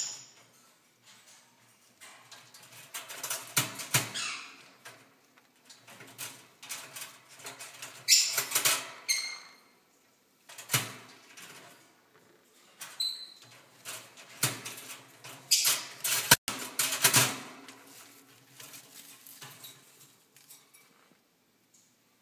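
A hybrid green-cheeked conure rattling the wire door of its metal cage with its beak and feet as it works the latch open: irregular metallic clicks, clinks and scrapes, with a few louder rattles.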